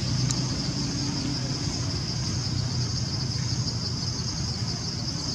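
Steady high-pitched insect chorus, with a low steady engine-like hum underneath.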